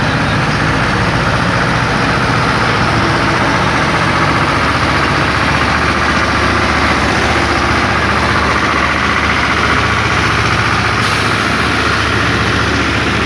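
Heavy construction-machinery engine idling steadily, a constant loud drone.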